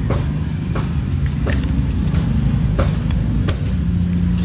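Steady rumble of passing road traffic with engine hum, and several sharp clicks over it.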